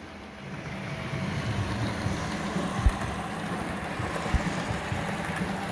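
Lima model train, the SNCF BB 25175 locomotive with its coaches, running along the track: a steady low rumble and hum of motor and wheels on the rails that grows louder over the first second, with two low knocks about a second and a half apart.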